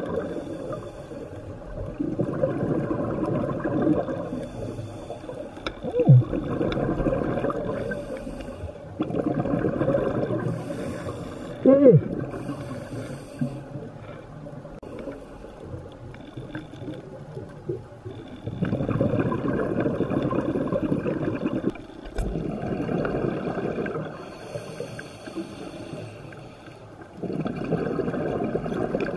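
A scuba diver breathing underwater through a regulator: exhaled bubbles burst out again and again for two to three seconds at a time, with quieter inhalation gaps between, and a longer quiet stretch mid-way. Twice in the first half there is a short sound that falls quickly in pitch.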